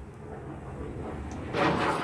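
Vinegar poured from a plastic jug onto baking soda in a hollowed-out pineapple, coming in as a sudden louder hiss of splashing and fizzing about one and a half seconds in, after a low, even background.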